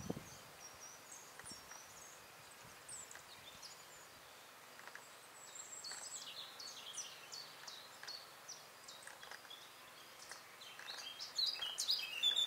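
Small birds singing and chirping, a scatter of short high calls and trills, louder and closer from about eleven seconds in.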